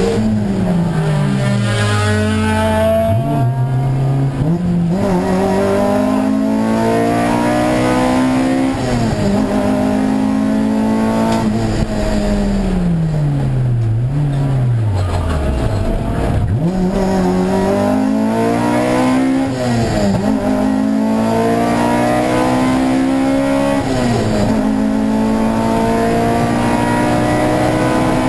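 Honda Civic's 1.8-litre four-cylinder engine racing, heard from inside the cabin: the revs climb, hold high for several seconds at a time, then fall away as it slows for corners, over and over.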